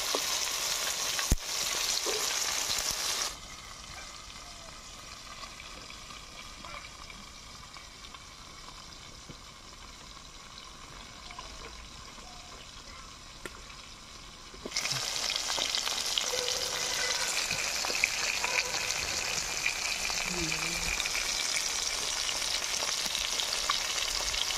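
Bhetki (barramundi) fish pieces sizzling as they fry in hot oil in a large metal wok. The sizzle drops to a quieter hiss about three seconds in and comes back up loud about fifteen seconds in.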